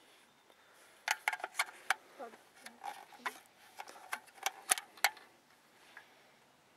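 A quick, irregular run of sharp light clicks and taps, about a dozen over four seconds, with a few faint squeaks among them.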